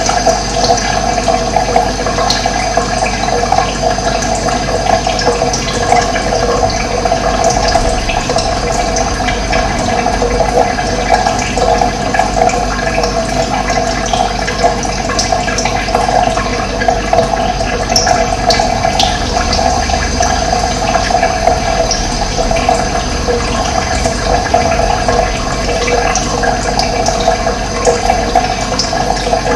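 Running water: a steady, continuous rushing flow that holds even throughout.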